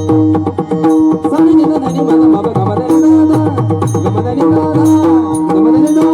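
Marathi devotional abhang music: a tabla-type hand drum keeps a steady rhythm of deep strokes under a held, sustained melody.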